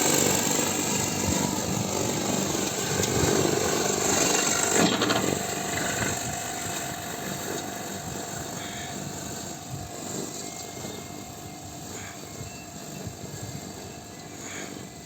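Lawn mower running with a steady machine drone and a high hiss; about five seconds in the hiss cuts off and the sound drops, running on quieter and slowly fading.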